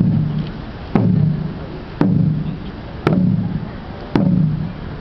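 A large ceremonial drum struck in a slow, steady beat, about one stroke a second, each stroke leaving a low ringing tail.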